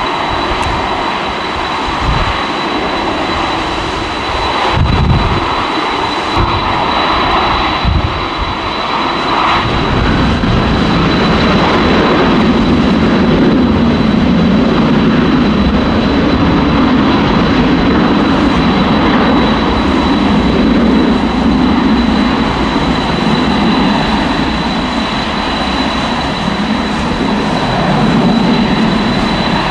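Jet engine noise from a Boeing 737 Next Generation's twin CFM56 turbofans at takeoff power during the takeoff roll. The noise grows louder and fuller about ten seconds in, then holds steady.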